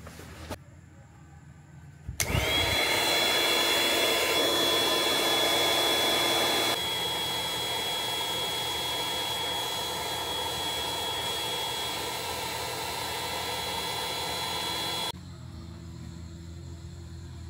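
Electric air pump switching on about two seconds in: its whine rises and settles into a steady high tone over motor and airflow noise. The pump drops slightly in level partway through, then cuts off suddenly about fifteen seconds in.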